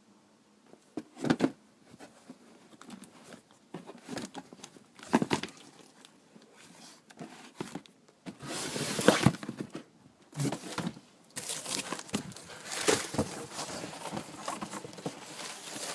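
Shoebox and packing paper being handled: irregular rustling, crinkling and scraping with sharp knocks of cardboard, loudest in a long rustle about halfway through.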